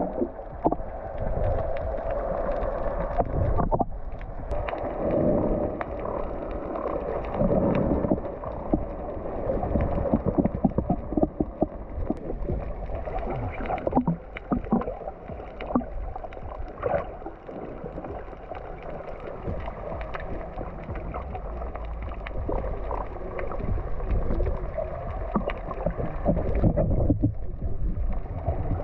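Water sloshing and gurgling around a snorkeler's camera, muffled as if heard through the water, with many short splashes and knocks.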